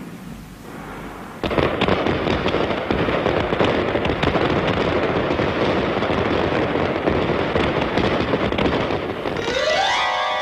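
Fireworks crackling and popping in a dense, continuous rattle, starting about a second and a half in. Near the end a rising tone leads into dramatic music.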